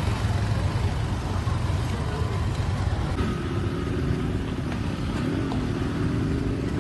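A motor vehicle's engine running with a steady low rumble, its pitch wavering a little from about halfway through.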